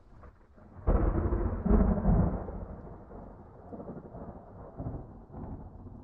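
Thunder: a loud, sudden thunderclap about a second in, swelling again a second later, then rolling off into a long low rumble with smaller swells.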